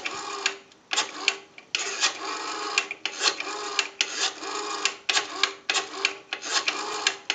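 Rotary dial on a Western Electric payphone being dialed: the dial is wound round and then runs back with a whirring, clicking return for each digit, one digit after another.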